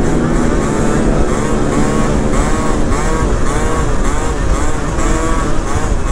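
Small scooter engine running steadily while riding at speed, mixed with heavy wind and road noise.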